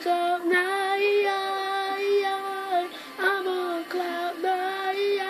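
A boy singing unaccompanied, holding two long notes with a short break about three seconds in.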